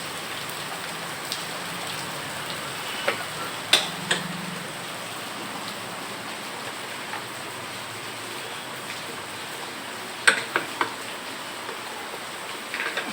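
Steady rain, with a few sharp clicks and knocks of tools being handled, in one cluster about three to four seconds in and another about ten seconds in.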